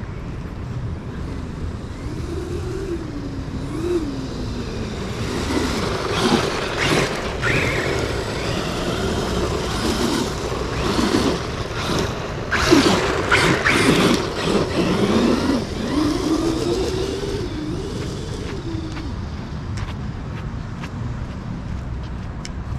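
An Arrma Granite 3S RC truck's electric motor whining, rising and falling in pitch as it speeds up and slows on hard sand. Its Pro-Line Dumont tyres spray sand in louder gritty bursts through the middle stretch.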